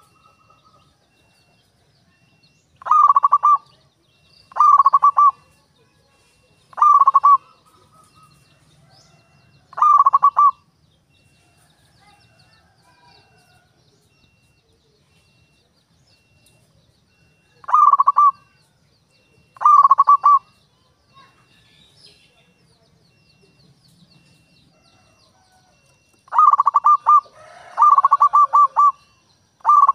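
Local-type zebra dove (perkutut) cooing: short, rapid, trilling coo phrases repeated about nine times, each under a second. They come in spaced pairs with long pauses, then three in quick succession near the end.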